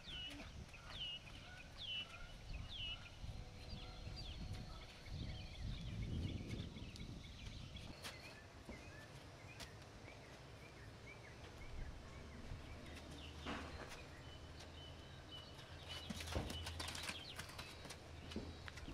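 Farmyard ambience: a songbird repeats short falling chirps through the first several seconds, while the horses' hooves give scattered knocks and thuds on the dirt, the sharpest cluster near the end. A low steady rumble runs under the second half.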